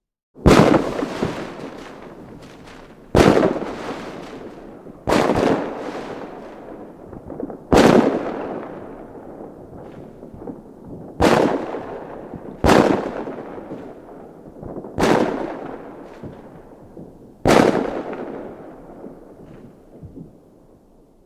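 Fireworks exploding: eight loud bangs a few seconds apart, starting about half a second in, each followed by a long fading rumble, with a few small pops near the end.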